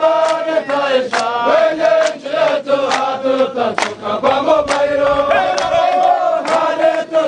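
Background music: voices chanting in chorus over a steady percussion beat of about one hit a second.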